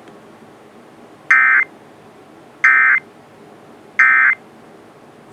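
Three short bursts of EAS/SAME digital data tones, about 1.3 seconds apart, over a faint hiss: the end-of-message code that closes a weather radio alert.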